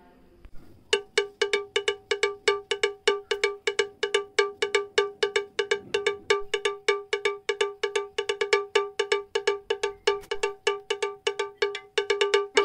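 Fast, steady bell-like strikes on a single pitch, about five a second, like a cowbell pattern in a backing music track. They start about a second in.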